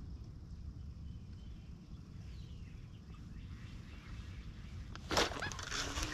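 A low steady rumble, then about five seconds in a sudden sharp swish and rustle of clothing as the angler sweeps the fishing rod up hard to set the hook, followed by crackling rustle as he fights the fish.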